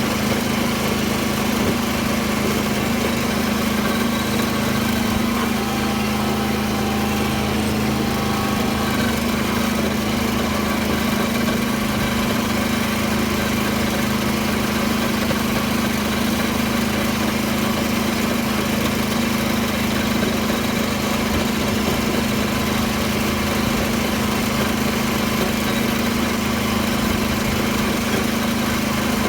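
Small farm tractor's engine running steadily under load while tilling a field with its rotary tiller, a constant even drone.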